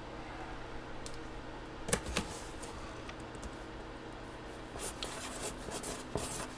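Light handling noise: a few sharp clicks about two seconds in, then a run of small clicks and scrapes near the end, over a steady low hum.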